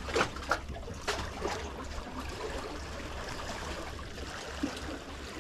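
Water lapping and trickling among the rocks of a jetty, with a low steady rumble underneath and a few light clicks in the first second or so.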